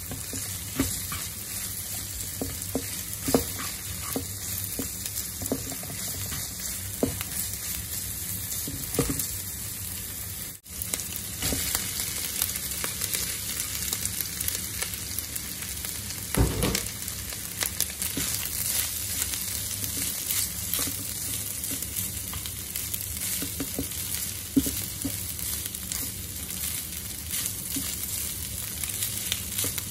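Oil sizzling steadily in a nonstick frying pan as onion, garlic and diced ham fry, then as cooked white rice is stir-fried, with scattered clicks and scrapes of a spatula against the pan. A single dull thump a little past halfway.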